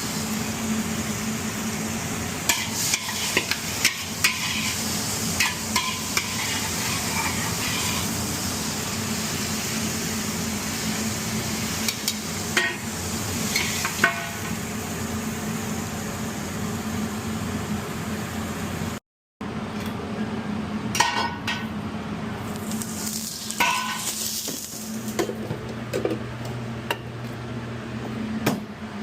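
Food sizzling as it fries in a pan, with a utensil stirring and scattered sharp clinks of metal against the pan. The sound drops out briefly about two-thirds through.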